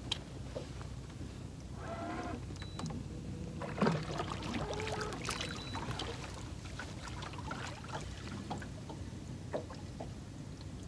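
Water lapping and trickling against a small fishing boat's hull over a steady low hum, with scattered small clicks and knocks.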